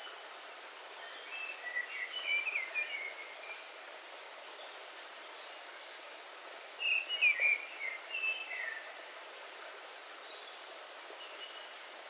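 A small rocky forest stream trickling as a steady hiss, thin with its low end filtered out. A songbird sings two short warbled phrases over it, the first about a second and a half in and the second around seven seconds in.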